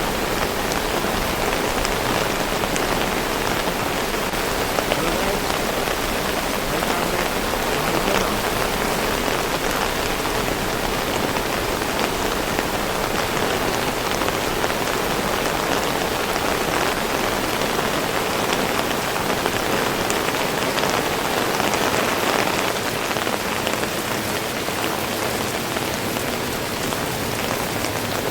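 Heavy rain falling steadily, a dense even hiss with many fine drop patters on surfaces.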